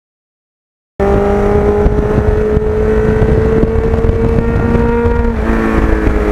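Kawasaki GPX750R's inline-four engine under way, cutting in suddenly about a second in, its pitch slowly rising as the bike pulls, then dropping about four seconds later at a gear change. Heavy wind rumble on the microphone underneath.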